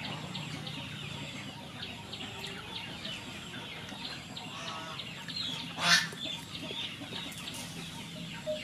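Chickens clucking and small birds chirping rapidly, over a low steady hum. One short, sharp, louder noise about six seconds in.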